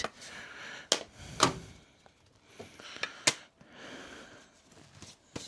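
Plastic parts of a condensing tumble dryer being handled and fitted back together: three sharp clicks and knocks, about a second in, half a second later and near the middle, with light rubbing and scraping between them.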